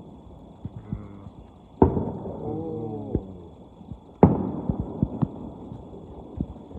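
Two distant fireworks shells bursting about two and a half seconds apart, each a sharp bang with a rumbling tail. Smaller pops and thumps come between and after them.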